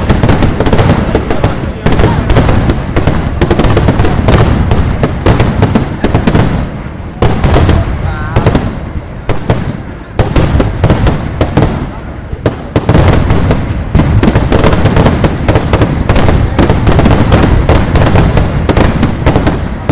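Kerala vedikettu fireworks barrage: a rapid, continuous run of firecracker bangs going off close together, with brief lulls a little past a third of the way in and around halfway.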